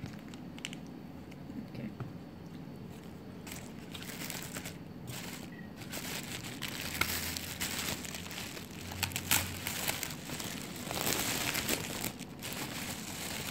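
Paper and plastic food packaging crinkling and rustling in irregular bursts while chicken and rice are handled by hand, busier after the first few seconds.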